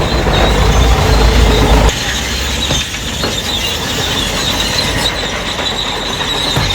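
Heavy diesel earthmoving machinery at work: a loud low engine rumble that cuts back suddenly about two seconds in, under a steady high metallic squeal and clatter.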